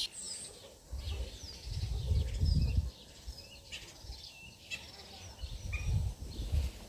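Small birds chirping in short, scattered calls, with bursts of low rumble; the loudest rumble comes about two to three seconds in.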